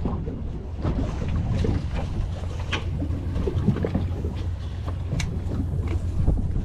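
Fishing boat's engine running steadily, a low rumble, with short splashes and knocks of water against the hull.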